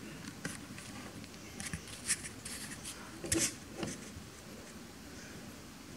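Light handling noise: a string of small taps, scrapes and rustles as the circuit board and its USB cable are held and moved, the loudest about two seconds and three and a half seconds in.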